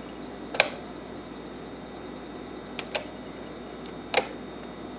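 Rotary function knob on a GE Spacemaker kitchen clock-radio being turned, clicking four times: once about half a second in, a quick pair near the middle and once near the end, over a faint steady background hum.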